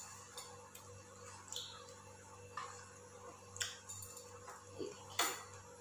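Faint kitchen handling: about seven light clicks and taps from a metal utensil working a maize-flour roti over a gas burner, scattered irregularly over a low steady hum.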